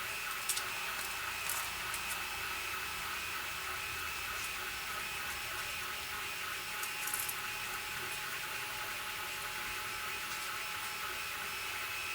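Printer running in the background with a steady mechanical whine of several held tones, with a few light clicks of small plastic parts being handled.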